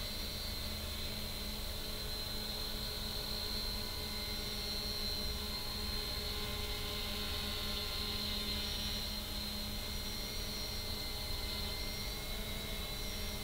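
3DR Iris+ quadcopter's four brushless motors and propellers running steadily in flight: a continuous whine with a steady hum underneath.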